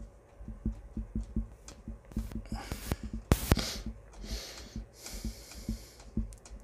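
Small precision screwdriver backing a long screw out of a plastic action figure: soft, regular clicks about three a second as the driver is turned, with one sharper click a little past the middle and a few short hissing noises.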